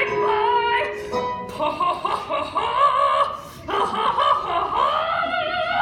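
A woman singing long, sliding held notes over musical accompaniment.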